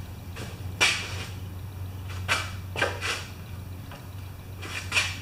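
Small tools and metal parts being handled at the bench while a throttle dampener spring is bent and refitted: about five short clicks and clinks over a steady low hum.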